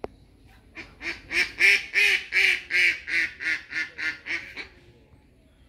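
A bird calling in a quick series of about a dozen short, harsh calls, about three a second, loudest early on and trailing off toward the end.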